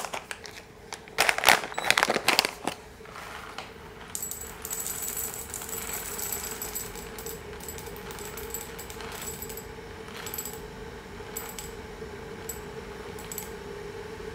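Whole coffee beans poured from a paper bag into a small metal cup on a scale: a few louder clicks and bag rustles in the first seconds, then a long trickle of many small clicks as the beans drop in, over a steady hum.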